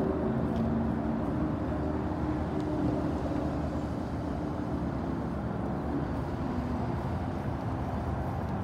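Steady rumble of road traffic, with a vehicle engine's low hum that fades away over the first six seconds or so.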